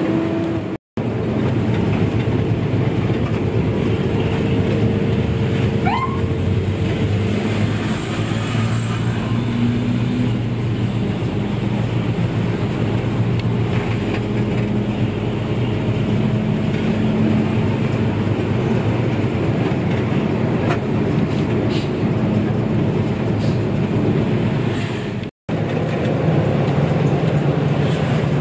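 Hino RG bus engine running, heard inside the non-air-conditioned cabin together with road and cabin noise, its pitch shifting now and then. The sound drops out briefly twice, about a second in and near the end.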